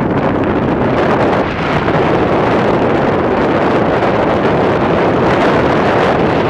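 Loud, steady wind rush buffeting the microphone of a moving motor scooter.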